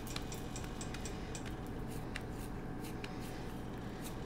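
Faint soft pats and light clicks of hands pressing and turning a ball of arepa corn dough flat between the palms, quick at first and then sparser, over a low steady hum.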